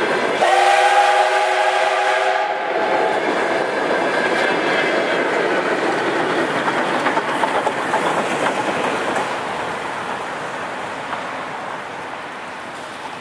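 Steam-hauled train passing: carriage wheels clicking over the rail joints, with a locomotive's steam whistle blown for about three seconds, starting about half a second in. About six seconds in, L-class steam locomotive L-2344 at the tail of the train rolls past, and then the train noise fades as it moves away.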